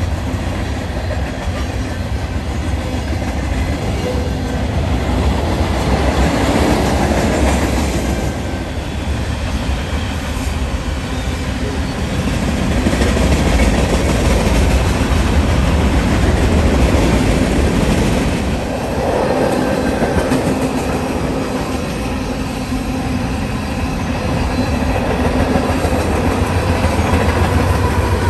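Union Pacific manifest freight train rolling past: a continuous rumble of freight-car wheels on the rails as boxcars and tank cars go by, swelling somewhat in the middle.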